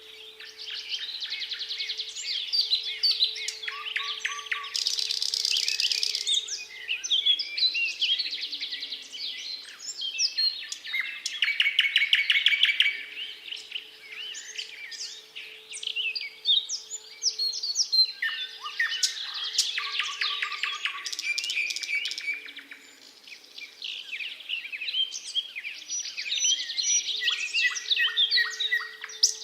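Thrush nightingale singing loud, varied phrases of trills and whistles, about six of them with short pauses between. Under it a faint distant siren wails in slow cycles, rising, holding a steady tone for several seconds, then sliding down, twice.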